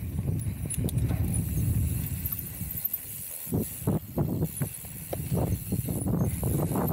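Mountain bike riding a rough trail: a steady low rumble of tyres and wind on the camera, with a quick run of short knocks and clatters in the second half.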